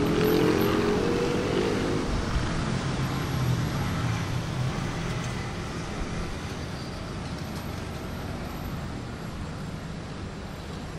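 City street traffic: a motor vehicle's engine rising in pitch as it pulls past during the first two seconds, then a steady wash of traffic noise that slowly fades.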